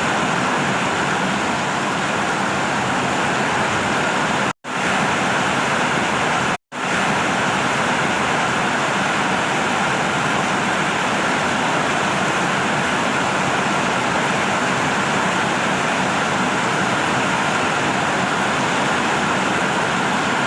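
Steady heavy rain, an even unbroken hiss, with two momentary dropouts to silence about four and a half and six and a half seconds in.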